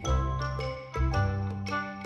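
Background music: a light, tinkly children's-style tune with a new note or chord about every half second over a steady bass.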